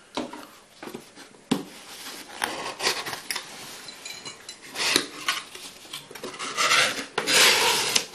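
Cardboard box flaps being pulled open, scraping and rubbing, with scattered light clicks and clinks as the packed glass contents shift inside the box. The scraping is loudest about five seconds in and again near the end.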